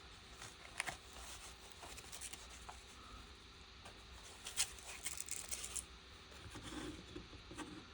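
Faint handling noise: light clicks and rustles as a precision screwdriver handle and bits are fitted into a nylon case, with a small flurry of clicks about halfway through.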